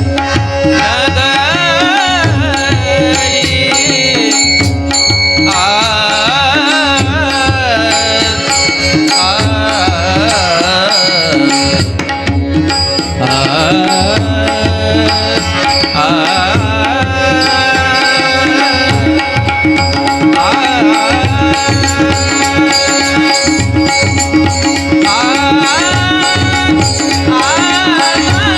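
Marathi abhang bhajan music: a steady tabla rhythm under a held drone, with an ornamented melody line that slides and bends in pitch.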